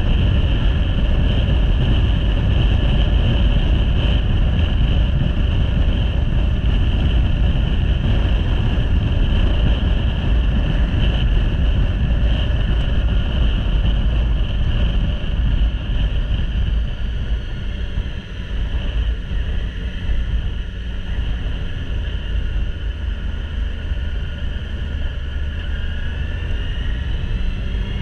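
Motorcycle riding noise: wind rushing over the camera microphone, with the engine and tyres under it. It gets quieter a little over halfway through as the bike slows, and the engine's pitch rises near the end.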